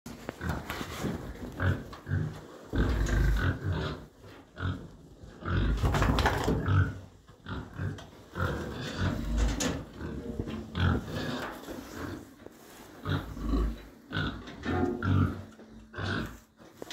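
Pregnant sow grunting at irregular intervals, short low grunts with a few louder ones.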